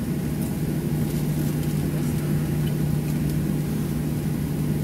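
Steady cabin drone of a Boeing 737-700 on the ground with its CFM56-7B engines running, heard from a window seat over the wing: a constant low hum under an even rush of air noise.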